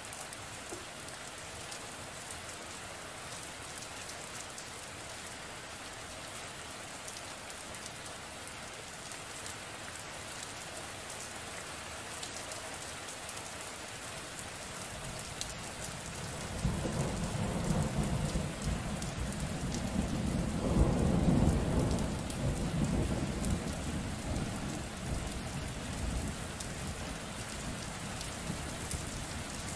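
Steady rain falling, with a long roll of thunder that starts a little past halfway, swells to a peak and slowly fades away.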